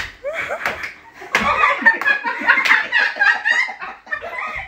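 Several people laughing hard together, with a few sharp smacks in the first second and a half.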